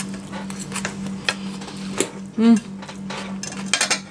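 Metal forks clinking and scraping against plates as two people eat, a string of short sharp clinks, with a brief hummed 'mm' about halfway through and a steady low hum underneath.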